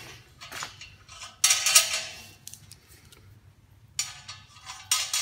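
Steel fitting parts (nuts, washers, bolts) clinking and scraping against each other as they are handled and put on: two clear bursts of metallic ringing, about a second and a half in and again about four seconds in, with a shorter clink near the end.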